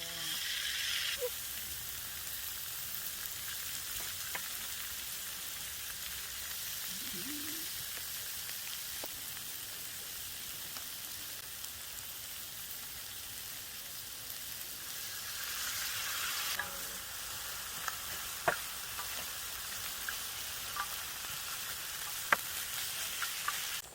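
Food sizzling steadily in a frying pan, louder for about the first second and again for a moment about two-thirds of the way through. A few sharp clicks come near the end.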